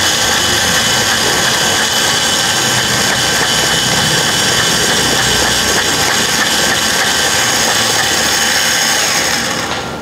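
Electric burr coffee grinder's motor running steadily as it grinds coffee beans, then winding down just before the end.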